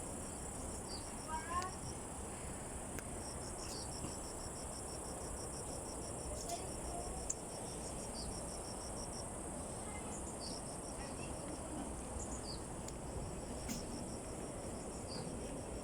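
Insects calling: an evenly pulsed high trill of about seven pulses a second, heard in two spells of several seconds, over a steady high insect hiss.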